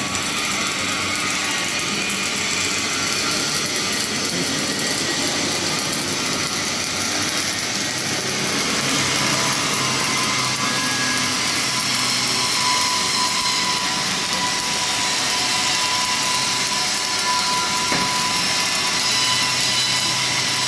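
Flux-cored wire MIG welding arc burning steadily as an automatic welding carriage lays a long fillet weld, a continuous hiss and crackle; a faint steady whine joins about halfway through.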